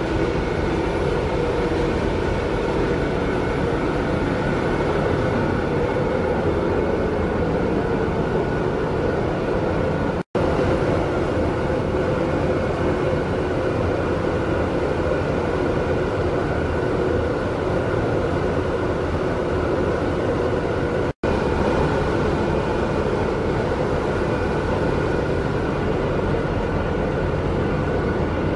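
Steady, loud engine-room drone of the ship's Wärtsilä 8L50DF dual-fuel eight-cylinder inline engines running, with a few steady tones over a low rumble. The sound cuts out twice, very briefly, about ten and twenty-one seconds in.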